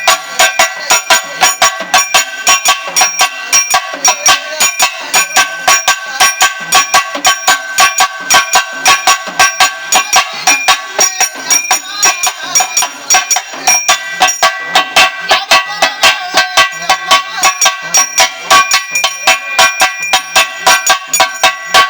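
Pambai isai, Tamil temple drum music: a fast, steady run of pambai drum strokes with ringing metal tones over them.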